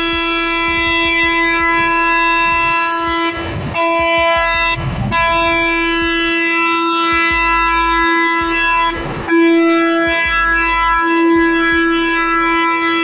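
Vehicle horn held down in long blasts: one steady note, cut off briefly a few times and sounding again.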